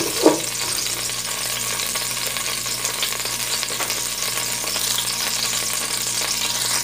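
Chopped garlic sizzling in hot oil in an aluminium pot, a steady crackling hiss. Two short knocks of a wooden spoon against the pot at the very start.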